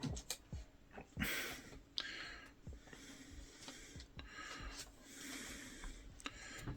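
Trading card being handled and slid into a plastic sleeve: soft plastic swishes and light clicks, the loudest swish about a second in.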